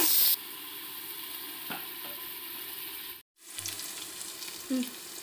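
Sliced onions sizzling in hot oil in an aluminium pot as they are sautéed until soft and browned. The loud sizzle drops abruptly to a quieter steady sizzle about a third of a second in, and the sound cuts out briefly about three seconds in.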